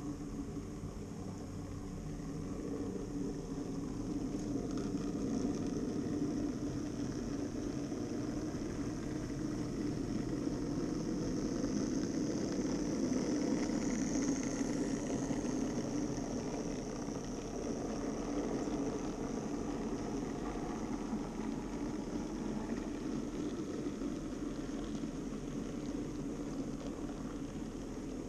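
N-scale Minitrix V160 diesel locomotives running in double traction with a freight train: a steady whir of the small motors and wheels rolling on the rails. It swells to its loudest as the locomotives pass close by about halfway through, then carries on as the wagons roll past.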